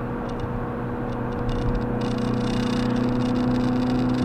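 Car cruising at about 95 km/h, heard from inside the cabin: steady road and tyre noise with a low, even engine hum.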